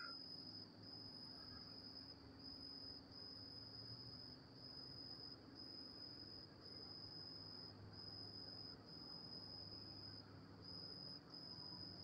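Crickets trilling: a faint, high, steady trill broken by short gaps about once a second.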